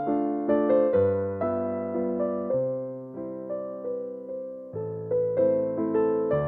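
Background piano music: chords and melody notes struck and left to ring out, with no other instruments.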